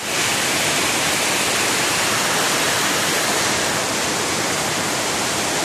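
Heavy rain falling in a dense, steady hiss.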